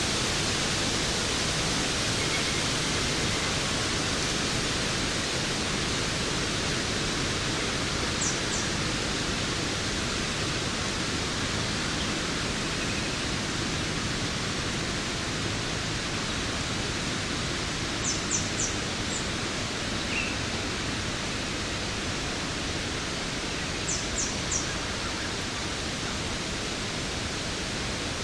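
Steady rush of a waterfall. A few short, high chirps in quick groups of two to four come through it about a third of the way in, two-thirds in, and near the end.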